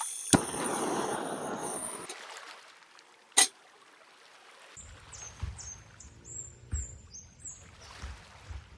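Running water for about the first two seconds, broken by a sharp click, then a quieter stretch with another click. Near the end a bird chirps a quick series of short falling notes over a low rumble.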